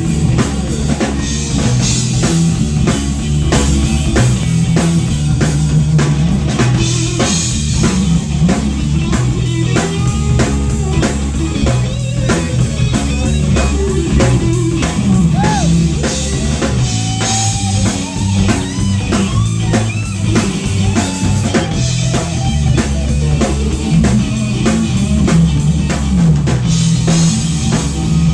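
Blues-rock band playing live and loud: an electric guitar lead with bending notes over a steady drum-kit beat and bass guitar.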